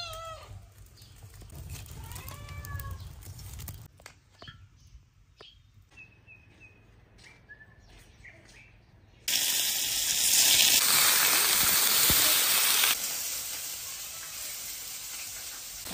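A cat meowing faintly at the start, then small birds chirping. About nine seconds in, a loud sizzle starts suddenly as small fish fry in hot oil in a large iron wok, easing off after a few seconds.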